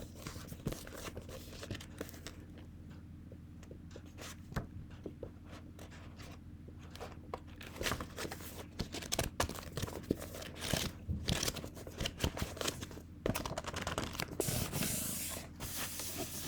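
A hair iron (flat iron) worked through hair close to the microphone: many sharp clicks and taps mixed with rubbing and scraping strokes, busier in the second half. About 13 seconds in comes a longer hissing stroke lasting a couple of seconds.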